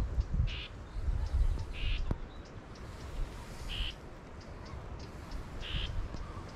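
A bird gives four short harsh calls about two seconds apart, with faint high chirps around them. Wind buffets the microphone in a low rumble, strongest in the first two seconds.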